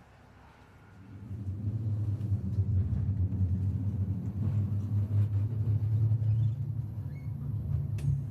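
Low, steady rumble of a VR passenger train, coming up about a second in. A short click comes near the end.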